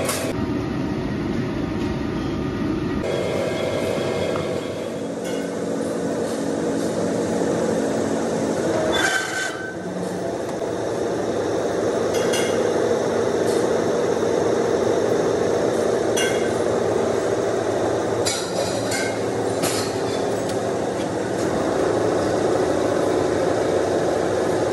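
Heavy hydraulic press deep-drawing steel discs into gas cylinder halves: a steady, loud machine drone with a few sharp metal knocks.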